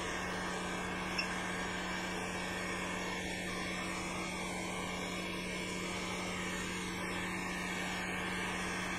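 Hot air rework station blowing steadily on the CPU's solder-ball bridges: an even rushing hiss with a low steady hum under it, and one small click about a second in.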